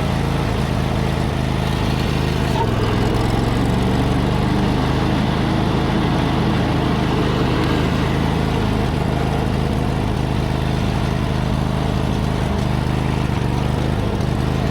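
Kawasaki FH601V V-twin engine of a John Deere GT245 lawn tractor running steadily. The engine runs rich and misses a cylinder now and then, which the owner suspects is a bad ignition coil.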